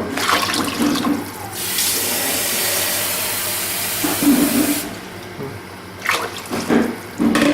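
Water running with a steady rushing hiss that stops abruptly about five seconds in, with a few brief low murmurs over it.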